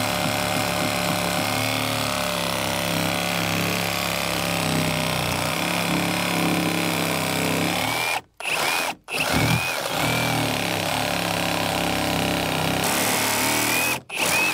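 Handheld electric power tool running and cutting into the hull timber, a steady motor sound with a whine. It breaks off sharply for a moment about eight seconds in, again just after, and once more near the end.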